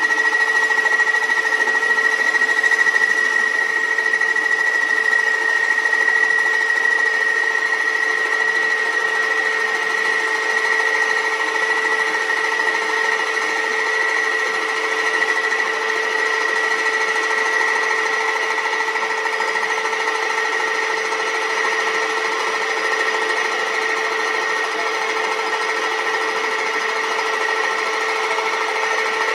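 Metal lathe running and turning a steel part, a steady high whine over a mechanical rattle.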